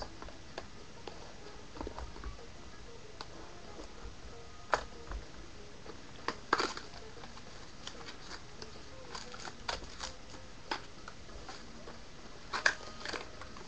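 Trading-card packaging and cards being handled and opened: scattered light clicks, taps and brief rustles at irregular intervals, with one sharper click near the end.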